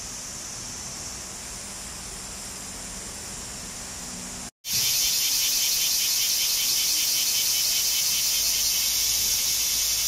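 A steady, high-pitched hiss of cicadas, cut off abruptly about halfway through. A louder bear cicada (kumazemi, Cryptotympana facialis) song then takes over, a rapid pulsing buzz.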